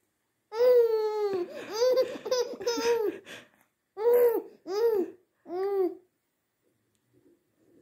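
Baby's voice: a long drawn-out coo that falls in pitch, a run of babbling, then three short separate laughs about half a second apart.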